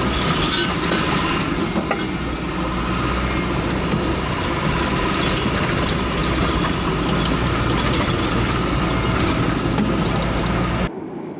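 Passenger train running at speed, heard from inside a coach: a steady noise of the wheels on the track and the carriage. It drops off abruptly near the end.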